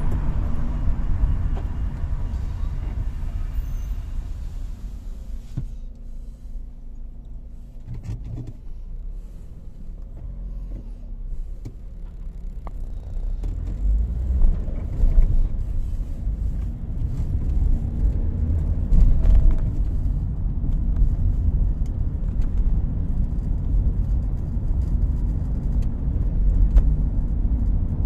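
Car engine and road rumble heard from inside the cabin while driving in town traffic; it eases off for several seconds in the middle, then grows louder again as the car picks up speed.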